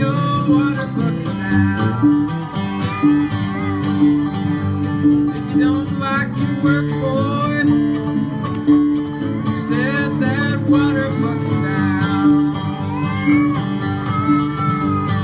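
Live bluegrass band playing: plucked acoustic guitars and other string instruments carry a wavering melody over a steady, evenly pulsing upright bass line.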